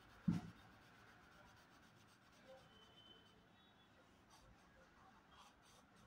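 Pen scratching faintly across drawing paper in short hatching strokes. A single thump sounds about a third of a second in.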